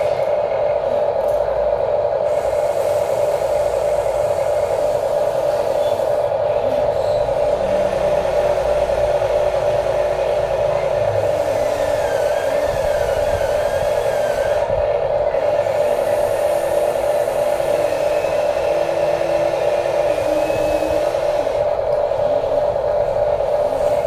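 Huina 1593 RC excavator's electric motors whirring steadily as it digs, with fainter motor whines wavering in pitch as the boom and bucket move.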